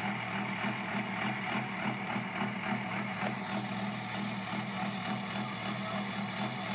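Cummins diesel truck engine running steadily at an even speed, with no revving.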